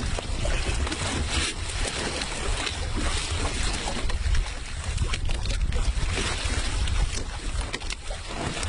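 Wind buffeting the microphone over water sloshing and splashing against the side of a small boat, with a few brief knocks and splashes.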